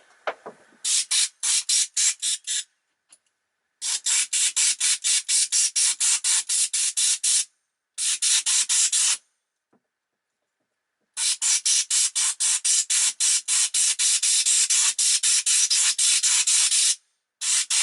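A pressurised air or spray jet blasting muck out of a vacuum cleaner motor's copper windings at turned-up pressure: a loud hiss that pulses about five times a second, in several bursts with short pauses, the longest lasting about six seconds.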